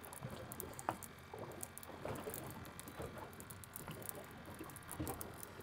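Fishing reel being cranked against a bent rod while a fish is fought up from the bottom, heard as faint, irregular soft knocks and light ticks.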